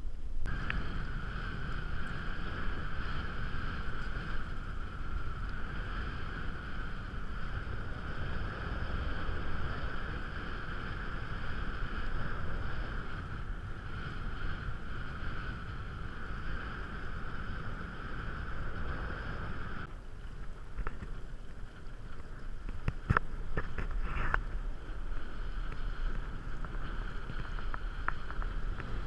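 Wind rumbling on the microphone and water rushing past while kite hydrofoiling, with a steady high-pitched hum that cuts out about twenty seconds in. A few sharp clicks follow near the end.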